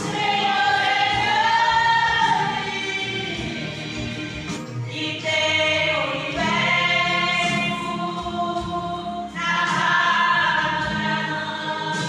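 Women's voices singing a gospel hymn together, one voice leading through a microphone and loudspeaker. Long held, gently wavering notes in three phrases with short breaks between them.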